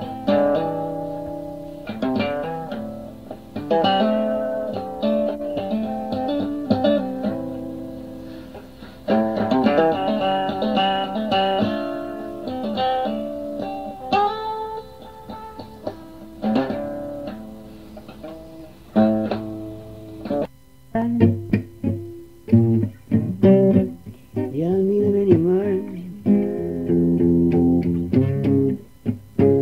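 Guitar playing an instrumental passage of picked notes and chords, from an old home tape recording. There is a short break about twenty seconds in before the playing resumes.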